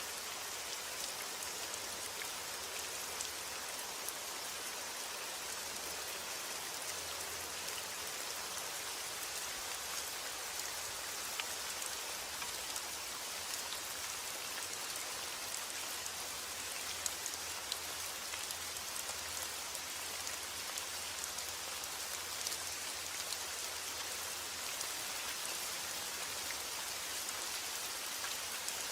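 Steady heavy rain falling, a dense even hiss with scattered individual drop patters.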